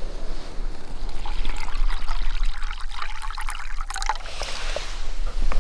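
Water poured from a bottle into a metal camp cooking pot, a steady trickle lasting a couple of seconds in the middle.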